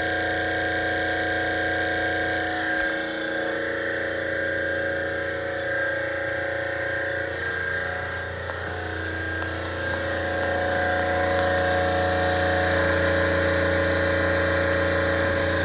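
Water-cooled Copeland refrigeration compressor running steadily, a constant low hum with several steady higher tones over it.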